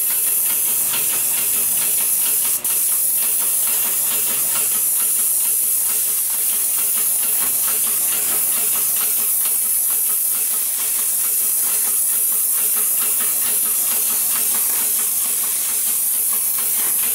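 Airless paint spray gun hissing steadily as it atomises thick elastomeric coating onto siding, the hiss breaking off for a moment about two and a half seconds in.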